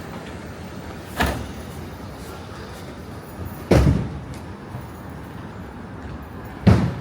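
Three heavy thumps, evenly spaced about two and a half to three seconds apart, each dying away quickly, over a steady hum of street traffic.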